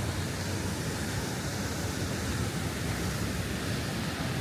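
Steady rushing of ocean surf breaking on a beach, with wind buffeting the microphone.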